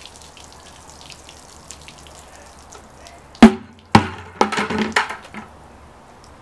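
Faint dripping and trickling of water off a drenched man and his patio chair just after a bucket of water is poured over him. About three and a half seconds in come two sharp knocks half a second apart, then a quick run of lighter clicks and knocks.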